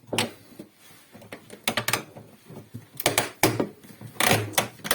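Temperature controls of a Samsung refrigerator being set, clicking in four short runs.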